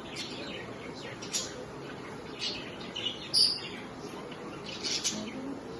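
Pet budgerigars chirping: a scattered series of short, sharp chirps, the loudest about three and a half seconds in.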